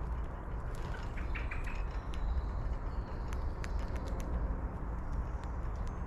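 Outdoor ambience: a steady low rumble with scattered sharp ticks, and a short bird twitter about a second in.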